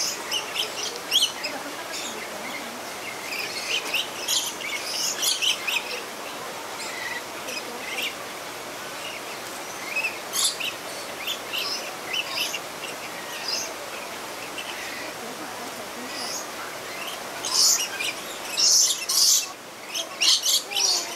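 Rainbow lorikeets chattering with short, shrill chirps and screeches, scattered throughout, with a louder, denser run of calls near the end.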